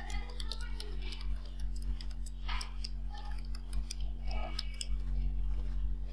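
Computer keyboard being typed on: irregular runs of short key clicks, over a steady low electrical hum.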